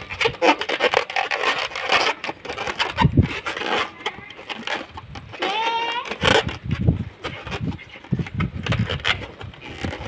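Long latex modelling balloon being twisted and wrapped by hand, the rubber rubbing and squeaking against itself and the fingers in an irregular run of scrapes, with one clear pitched squeak about six seconds in.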